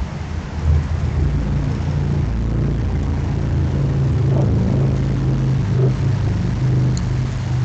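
A low, steady engine drone that swells about a second in and holds.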